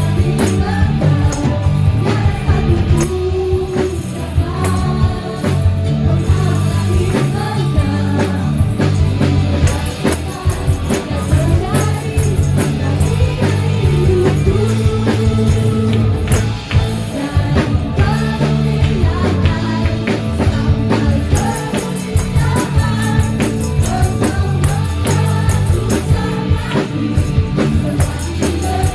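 Indonesian contemporary worship song: sung vocals over a band, with tambourine jingles shaken and struck in time with the beat.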